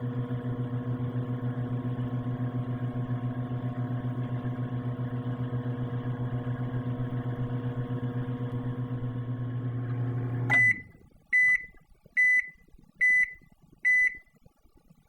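Microwave oven running with a steady hum, then shutting off about ten seconds in and giving five short, high beeps at even intervals to signal that the heating cycle has finished.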